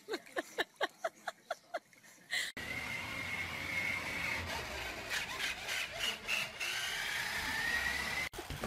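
A dog yipping and whimpering in quick short calls, about four or five a second, while swimming. After a sudden cut, the electric motor of a remote-controlled toy dump truck gives a steady whine that wavers in pitch, and its plastic wheels rumble over a hardwood floor while a cat rides in the bed.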